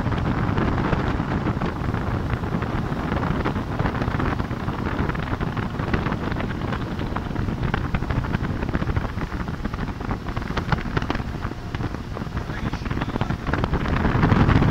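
Solaria 250 motorboat running at speed: heavy wind buffeting the microphone over the steady rush of the boat and water, getting a little louder near the end.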